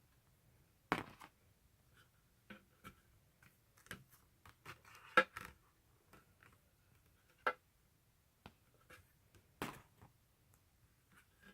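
Handling of a K-pop album package being unboxed: scattered taps, clicks and light rustling, with one sharper tap about five seconds in.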